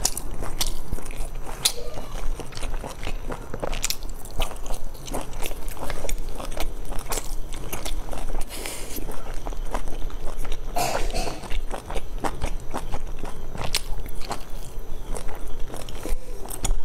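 Close-miked eating: biting into and chewing soft pleated dumplings, with many quick, irregular mouth clicks and smacks.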